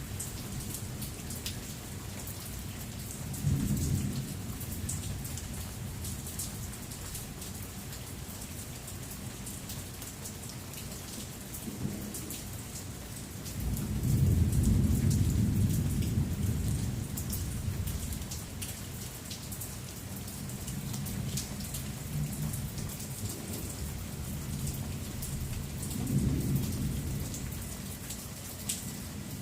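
Steady heavy rain with thunder rumbling three times. The loudest peal comes about halfway through and rolls on for several seconds as it fades; shorter rumbles come near the start and near the end.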